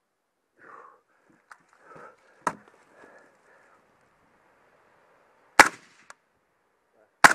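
Three gunshots from a competition firearm: a lighter crack about two and a half seconds in, then two loud shots about a second and a half apart near the end, with small clicks and faint shuffling between.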